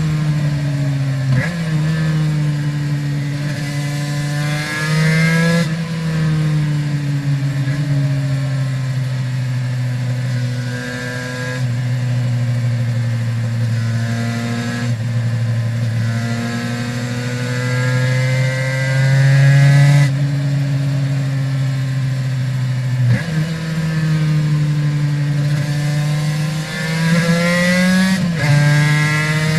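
Aprilia RS 250's two-stroke V-twin through Arrow exhausts, ridden on the road. Engine pitch climbs and falls with the throttle, and it steps abruptly at several gear changes, including about a second and a half in and near the end.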